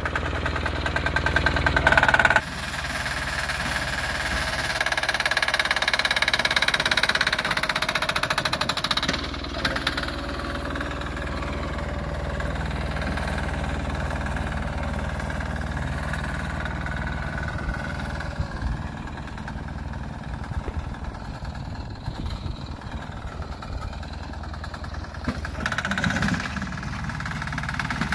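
Sears garden tractor's 6 hp single-cylinder air-cooled diesel engine running steadily. Its sound drops about two seconds in and changes level a few more times as the tractor works.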